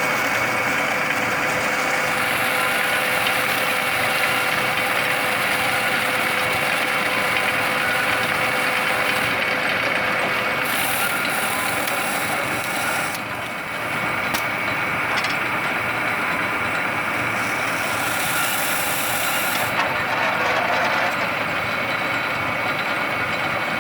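Silage round baler-wrapper running steadily as it bales alfalfa silage: a continuous machine noise with a steady whine over it, dipping briefly about halfway through.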